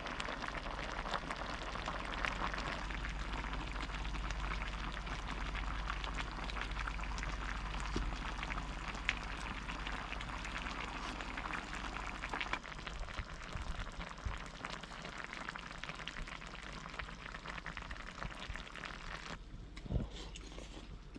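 Pot of gamjatang (pork-bone soup) simmering on a camp stove: a steady crackly bubbling hiss that eases about two-thirds of the way through and drops near the end.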